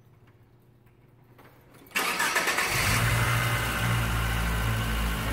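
1995 Pontiac Firefly's engine starting: about two seconds in the starter cranks briefly, the engine catches almost at once and settles into a steady idle. It is the first start after a new radiator has been fitted and filled with coolant.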